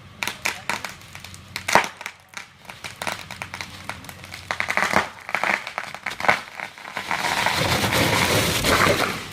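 White birch wood cracking and branches snapping in a quick run of sharp cracks as a piece of the tree comes down, then a longer rushing crash of branches in the last two seconds.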